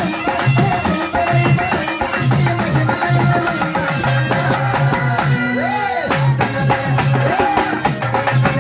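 Pandari bhajana folk devotional music: a hand drum beating a steady, fast rhythm under melodic instruments, with a tone that swoops up and back down about two thirds of the way through.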